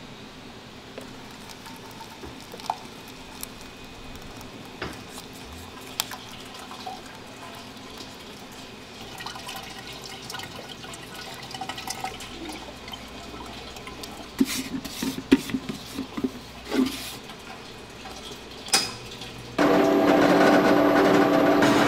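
Thick ice cream base poured from a plastic jug into a batch freezer's hopper, with a silicone spatula scraping and knocking against the jug and the steel. Near the end the batch freezer starts up suddenly with a loud, steady motor hum as it begins its freezing cycle.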